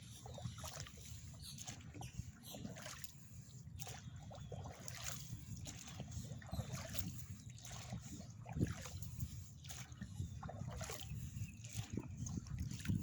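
Oars of an inflatable rowboat dipping and pulling through the water, with repeated splashes, drips and sloshing, over a steady low rumble.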